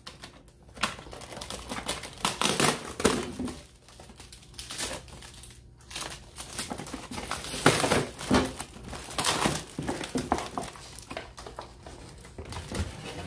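Plastic and cardboard packaging crinkling and rustling irregularly as it is handled and pulled apart, with several louder crackles along the way.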